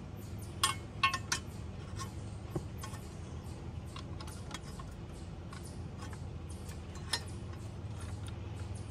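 Small metallic clicks and clinks as a metal brace and protective cover are worked into place around the auto throttle linkage under a compact tractor. A few sharper clinks come in the first second and a half and another later on, over a steady low hum.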